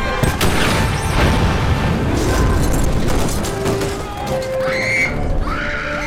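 Film soundtrack mix: orchestral score over heavy booms and rumbling blasts of military weapons fire, starting with a sharp hit just after the start. Shouting voices come in near the end.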